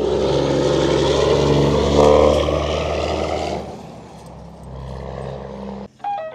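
Heavy truck engine running close by, a steady low drone under a broad noise that eases off about three and a half seconds in. Music cuts in just before the end.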